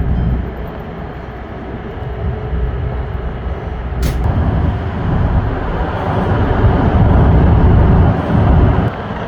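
Low rumble of a moving car heard from inside the cabin, with a single sharp click about four seconds in and the rumble growing louder in the second half.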